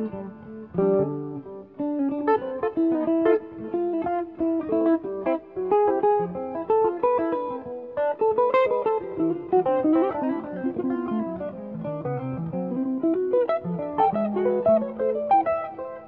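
Two jazz guitars playing a duet in counterpoint, with quick single-note lines and chords weaving over and under each other.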